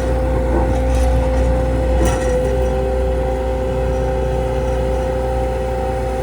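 2011 Bobcat S630 skid steer loader's diesel engine running steadily, a low rumble with a steady whine over it; a second, slightly lower whine comes in about two seconds in.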